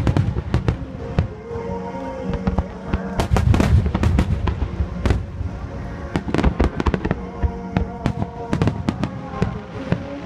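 Aerial fireworks shells bursting in quick succession, many sharp reports with ringing after them, densest about three to four seconds in, over music playing.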